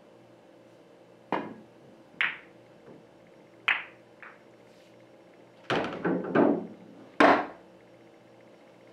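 Pool cue striking the cue ball, then sharp clicks of billiard balls colliding and knocking off the cushions during a kick shot in which the cue ball ticks into a cluster of balls. Single clicks come a second or so apart, then a quick run of several clicks about six seconds in, and the loudest click about seven seconds in.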